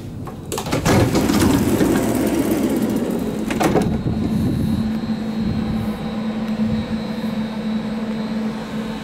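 Passenger door of a Stadler Flirt Sm5 electric commuter train opening at the press of its button, with a rush of noise and a few clicks, and a sharp knock about three and a half seconds in. Then the train stands at the platform with a steady electrical hum and a high whine.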